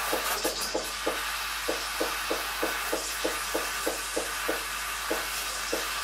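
Espresso machine steam wand hissing steadily into milk in a stainless steel pitcher, frothing it, over a regular low pulse about three times a second.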